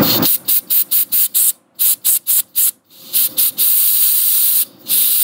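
Compressed-air blow gun hissing as it is blown through the jet passages of a Kohler Command twin carburetor body to clear them. It gives a rapid string of short blasts for about three seconds, then longer blasts of about a second each.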